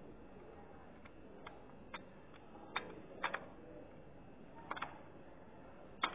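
Lego sliding door pushed open and shut by a finger: light plastic clicks and taps, some in quick pairs.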